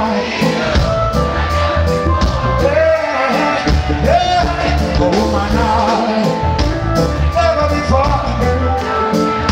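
Live reggae band playing: a man sings into a handheld microphone over electric guitar, keyboards, bass and drums, with a heavy bass line and a steady drum beat.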